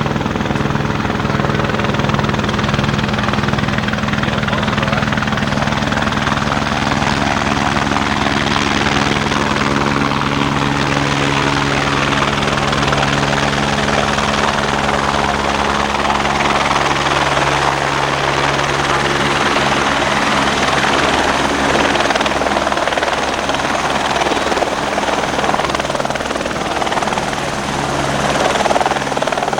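Helicopter running in flight: a loud, steady drone of engine and rotor with a low hum underneath.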